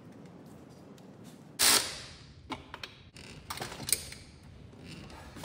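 Tools and engine parts being handled at a workbench: a sudden loud knock about a second and a half in that dies away quickly, then a few light clicks and another cluster of knocks.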